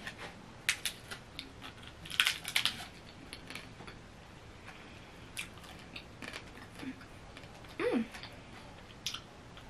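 Chicken taco being bitten and chewed: short scattered crunches and crackles, thickest about two seconds in, with a brief hummed 'mm' near the end.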